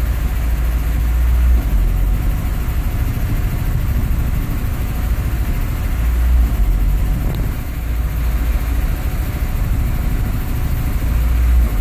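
Nissan 240SX's KA24E 2.4-litre inline-four idling roughly: a deep, uneven engine sound whose low rumble swells and eases every few seconds.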